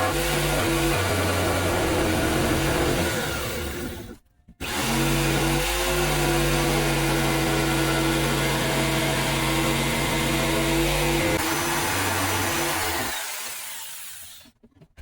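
A stationary power saw running while cutting wedges from hickory, with a steady motor hum. It drops out briefly about four seconds in, starts again, and winds down and stops near the end.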